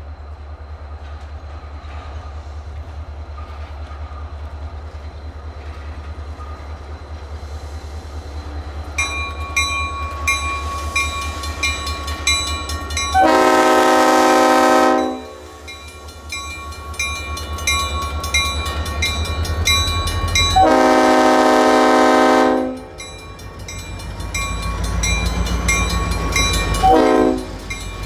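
Diesel locomotive approaching and passing a grade crossing, its engine rumble growing louder. It sounds its horn in two long blasts and then a short one, the start of the grade-crossing signal. A bell rings steadily from about a third of the way in.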